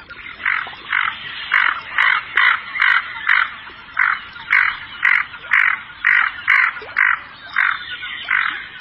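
Barrow's goldeneye giving short, harsh, croaking calls, repeated about twice a second.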